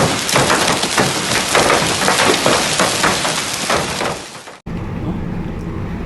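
Hail falling heavily, a dense rapid patter of many small impacts that fades and stops suddenly about four and a half seconds in, followed by a steady low hum.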